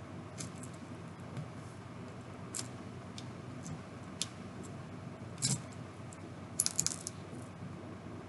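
Plastic Lego bricks clicking and clattering as they are handled and pressed onto a small model vehicle: scattered single sharp clicks, then a quick run of several about two-thirds of the way through.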